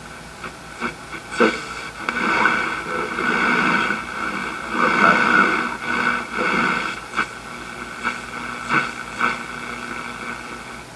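Shortwave reception from a 1937 Sears Silvertone tube radio's speaker: static and hiss with steady whistling tones and an irregular, surging garbled signal, broken by sharp crackles. It cuts off right at the end, leaving a low hum.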